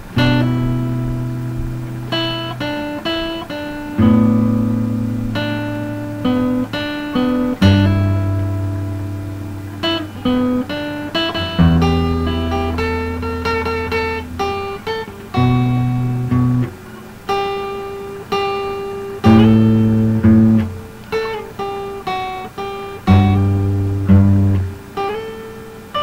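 Instrumental acoustic guitar music: chords and single notes are plucked every second or two, and each rings out and fades, with low bass notes under them.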